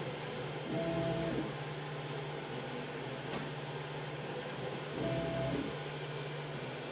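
Homemade CoreXY 3D printer's stepper motors whining through two short moves of the print head, about a second in and about five seconds in, over the steady hum of the printer's fans, with a faint click between the moves.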